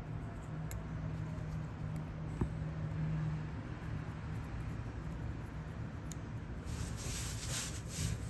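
Hand work on a small device at a repair bench: a few faint clicks over a steady low hum, then a scraping, rubbing sound that starts a little before the end.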